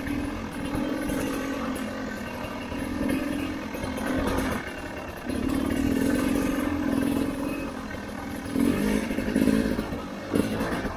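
Enduro motorcycle engine running and revving up and down on the throttle, with louder surges near the end.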